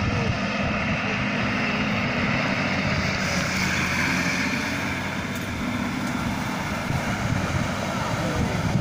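Nissan Patrol off-road truck's engine running steadily under load as it drives through mud into shallow water, with a rushing noise growing from about three seconds in.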